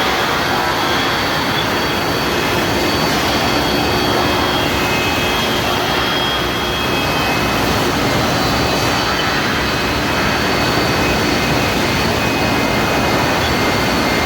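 Steel drill-pipe induction hardening and tempering line running: a steady, loud machine roar with several thin, steady high whines over it.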